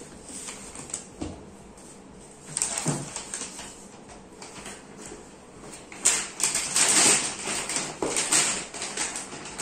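A brown paper bag rustling and crinkling as a cardboard board-game box is handled and pushed into it, in crackly bursts: a short one about a third of the way in, then a longer, louder stretch near the end.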